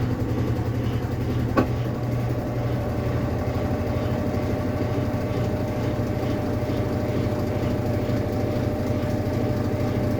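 Consul Facilite 8 kg top-loading washing machine in its spin cycle, running with a steady loud mechanical drone and grinding, a fault noise from the drive that a new gear kit has not cured. A short click about a second and a half in.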